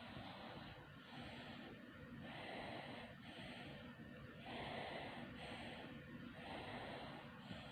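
A sleeping baby snoring: rhythmic noisy breathing, each breath a longer rasp followed by a shorter one, about one breath every two seconds.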